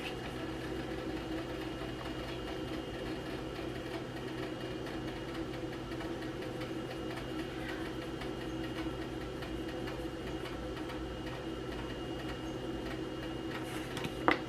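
Steady low hum of a running kitchen appliance, with faint light ticking.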